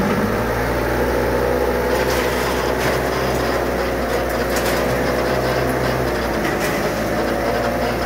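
Dump truck engine running steadily under load as it drives the hydraulic hoist that tips the bed, with the load of soil and gravel sliding out the back. The engine note shifts slightly about six seconds in.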